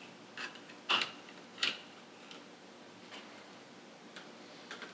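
Hard plastic clicks and taps as vacuum attachments are slid onto a plastic tool caddy on a canister vacuum's wand. There are three clear clicks in the first two seconds, the middle one loudest, then a few fainter taps.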